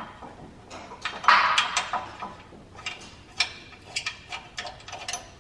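Light metallic clicks and clinks of a steel bolt being handled and threaded by hand into a skid-plate bracket on the frame, with a louder, longer clank about a second in.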